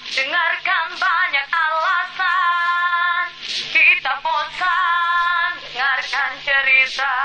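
A woman's voice singing slow, held notes with vibrato in short phrases, with almost no accompaniment.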